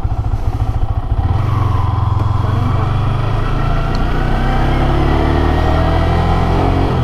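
Yamaha R15 V3's single-cylinder engine running at low revs, then from about a second in pulling harder, its pitch climbing steadily as the bike accelerates.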